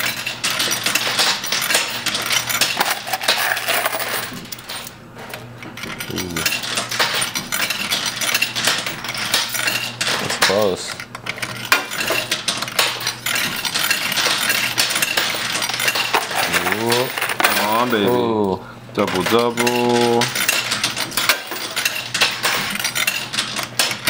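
Quarters clinking and rattling in a coin pusher arcade machine: a dense, continuous run of small metallic clinks as coins drop onto and slide across the moving shelf. A low steady hum runs underneath.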